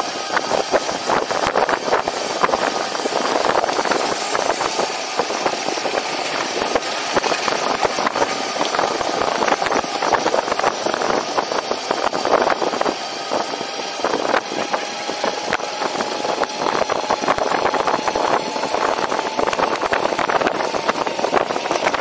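Continuous riding noise from a personal electric vehicle on the move: rolling, rattling and wind buffeting on the microphone, with a faint steady whine.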